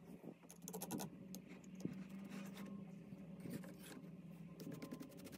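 Sand and tools scratching and scraping around a freshly sand-cast metal goose as it is brushed and pried out of the mould: many short dry scratches, over a faint steady hum.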